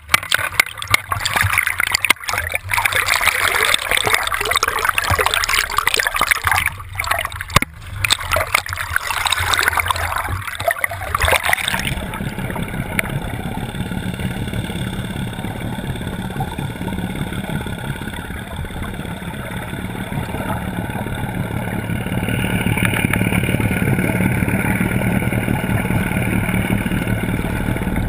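Water rushing and splashing around a camera held on a fishing net from a moving boat. About twelve seconds in it changes suddenly to the steady drone of the boat's motor, with the water sound duller.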